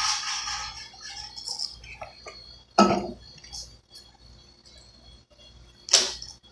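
Handling noises of fast-food eating: crinkle-cut fries rustled and dipped into a small plastic sauce cup. There is a sharp knock about halfway through and another sharp click near the end.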